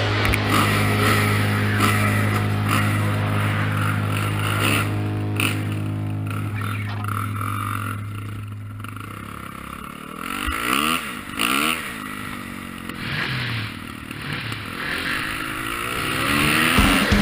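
Dirt bike engine running at a steady speed, then revving up and down several times, its pitch rising and falling, as the bike is ridden over dirt and sand.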